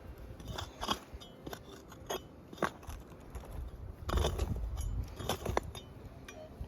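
Irregular crunching and scraping on stony, gravelly ground, a dozen or so separate strikes, with a few very brief thin high tones among them.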